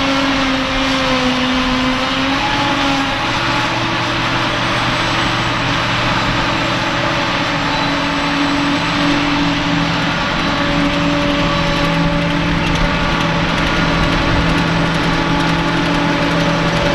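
Heavy field machinery running steadily: a CLAAS Jaguar 940 forage harvester chopping grass, with tractor engines working alongside. Several engine tones hold steady, then shift in pitch a few times.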